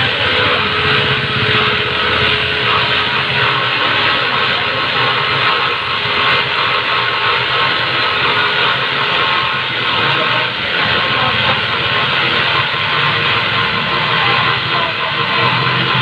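Pullman corded jigsaw running steadily at full speed as its blade cuts through a pine board.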